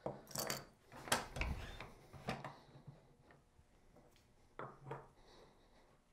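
Hand tools being handled on a wooden workbench: a few light knocks and clicks of metal and wood as tools are picked up and set down, several in the first two seconds and a couple more about two-thirds of the way through.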